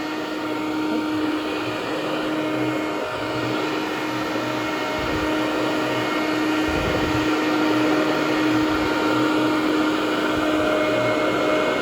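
Hoover Conquest Widetrack commercial upright vacuum, a direct-air design with its fan close to the carpet, running steadily over low-pile carpet tile with a continuous whirring hum. It is a noisy machine.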